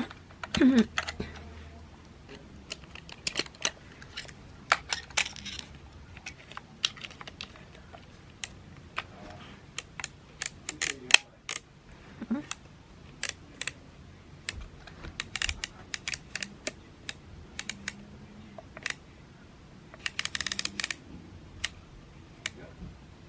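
Irregular sharp plastic clicks and light handling noises from a Nishika N8000 35mm film camera as its roll of film is unloaded, with a few brief rustles.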